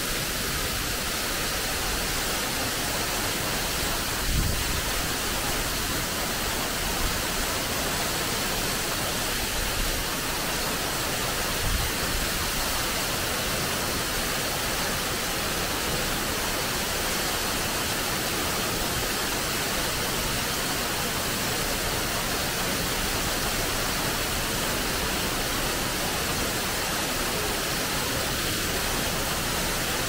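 Artificial rockwork waterfall: steady rush of falling water. Two brief low thumps, about four and twelve seconds in.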